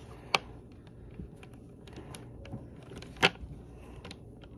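Hand handling things right at the microphone: faint scattered ticks and rubbing, with two sharp knocks, one about a third of a second in and one about three seconds in.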